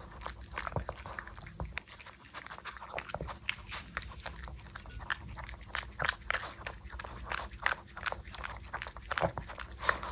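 A puppy chewing and biting food, possibly salmon tartare, with many quick irregular clicks and crunches.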